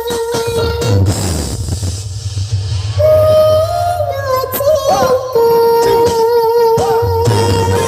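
Loud electronic dance music played over a large sound system, with a heavy bass line under a held, gliding melody line.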